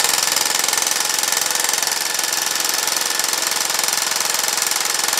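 Milwaukee M18 cordless reciprocating saw running steadily at speed, its rapid stroke pushing a rod back and forth to work a ratcheting screwdriver that slowly drives a screw. The buzz is loud and even throughout.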